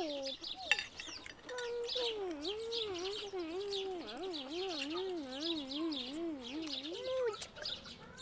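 Small birds chirping throughout. Over them a long, wavering, voice-like hum or call runs from about a second and a half in until near the end, its pitch rising and falling two or three times a second.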